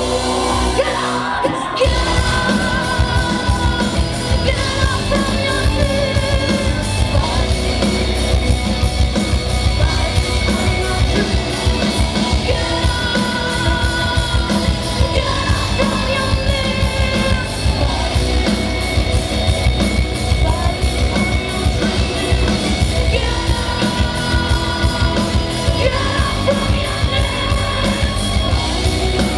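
Live metal band playing loud: distorted electric guitars, fast dense drumming and a female lead singer, with the echo of a large hall. The band drops out briefly about a second in, then crashes back in at full volume.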